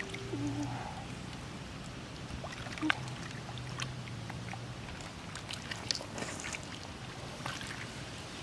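Hands dabbling and scooping through a shallow muddy puddle: small scattered water splashes and drips, with a faint steady low hum underneath.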